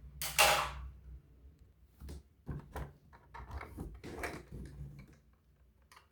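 Toys and their packaging being handled: a brief brushing swish about half a second in, then a scatter of small clicks and knocks.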